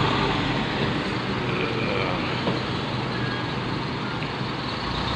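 Bus and lorry engines running steadily in a rest area as a bus pulls away, over an even hiss.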